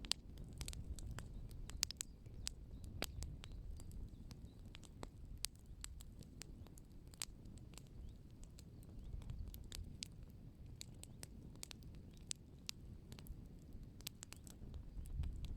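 Wood fire crackling: irregular sharp pops and snaps, several a second and of varying strength, over a low steady rumble.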